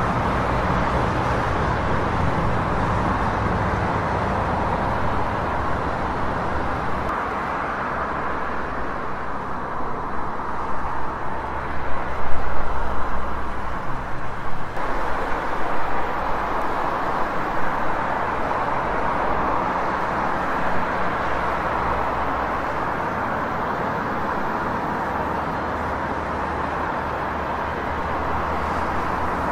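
Busy city street ambience: steady traffic noise from passing cars, swelling louder in the middle, with the mix shifting abruptly about halfway through.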